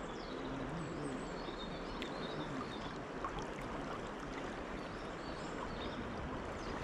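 Steady rush of a river running high after rain, with a few faint bird chirps over it.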